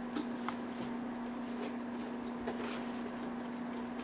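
Faint scattered taps and rustles of a small gift box being handled, over a steady low hum.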